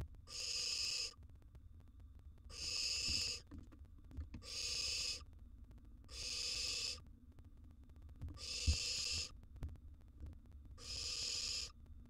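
Barn owl nestlings giving their rasping, hissing food-begging call, the 'snore': six hisses of about a second each, coming regularly about every two seconds. Faint low knocks from the owls moving in the wooden nest box lie between them.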